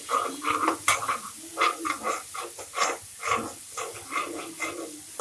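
Spatula scraping and stirring thick masala paste in a non-stick kadai, about two strokes a second, over a steady sizzle of the frying mixture.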